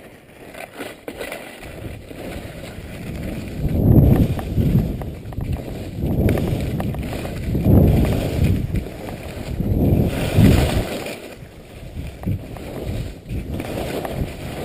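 Downhill skiing recorded on a moving skier's camera: wind rushing over the microphone in several strong surges, loudest about four, eight and ten seconds in, with skis scraping and hissing on hard, wind-packed snow.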